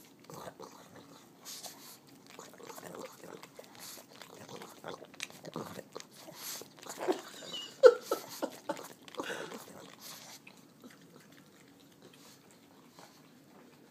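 A pug licking and smacking her lips with peanut butter stuck in her mouth: a run of short, wet smacks and clicks, loudest about seven to eight seconds in, thinning out after about ten seconds.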